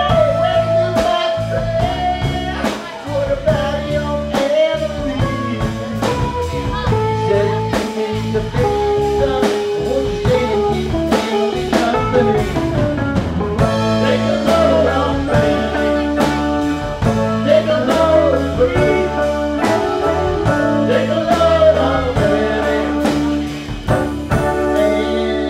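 Live band playing a mid-tempo bluesy rock groove on hollow-body electric guitar, electric bass, keyboard and drum kit, with a melodic lead line moving over the steady rhythm.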